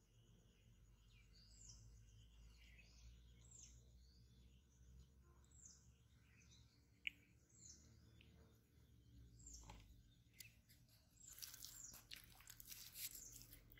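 Faint bird calls: short high chirps that slide downward, repeated every second or two. Near the end, close rustling and crackling takes over.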